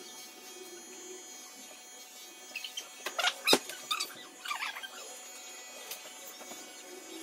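Electric hair clippers buzzing steadily during a haircut, with a cluster of sharp clicks and short squeaky sounds in the middle.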